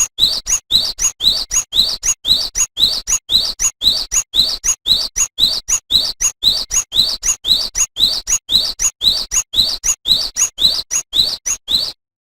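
Cinereous tit (gelatik batu) singing a rapid, even series of short rising whistled notes, about four a second. The song stops abruptly shortly before the end.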